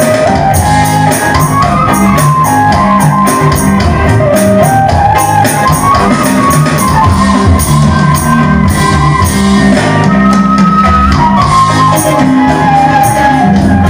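A live band plays a song together in a small room: electric bass, electric guitars, keyboard and drums keep up a steady rhythm under a bending lead melody line.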